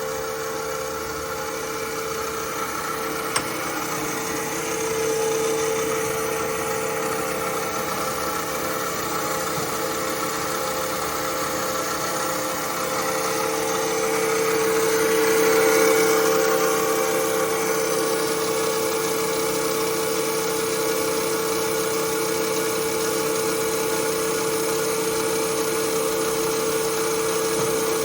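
Parker Majestic B-53 internal grinder running under power, its motors and spindle giving a steady hum with one held tone. There is a single click about three seconds in, and the sound swells slightly around five seconds and again around fifteen seconds.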